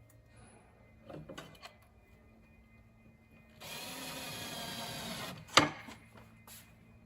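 Power drill driving a short screw into a drawer runner on a wooden panel, running steadily for about two seconds, then a single sharp knock. A few light clicks come before it.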